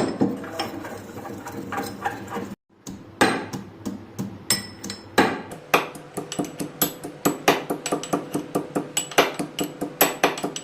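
Pestle pounding spices in a mortar to grind them to powder: a steady run of sharp strikes, about two to three a second, with a brief break about two and a half seconds in.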